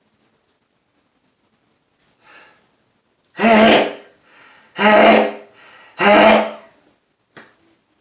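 A man sneezing three times in quick succession during a sneezing fit, loud voiced bursts about a second and a quarter apart, with short in-breaths between them.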